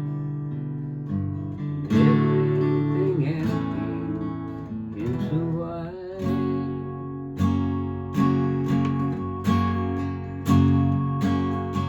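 Yamaha acoustic guitar playing ringing, sustained chords, then strummed chords in a steady rhythm of about one stroke a second from a little past the middle.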